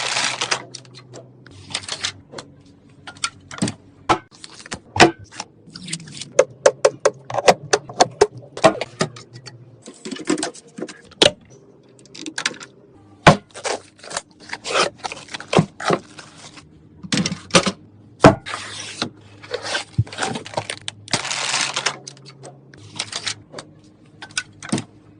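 Computer parts being handled and fitted together during a PC build: many sharp clicks, taps and light scrapes of plastic and metal, irregularly spaced, with short rustling bursts mixed in.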